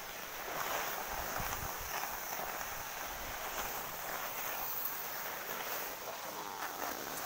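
Skis sliding and scraping over packed snow, a steady hiss, with brief wind rumble on the microphone about a second and a half in.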